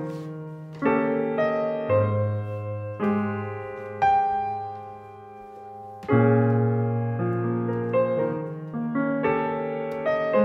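Background music of solo piano: slow chords struck about once a second, each left to ring and fade, with one chord held longer in the middle.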